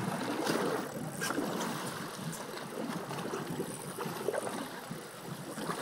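Choppy water washing and slapping against a small boat's hull, with wind noise over it and a few faint knocks in the first half.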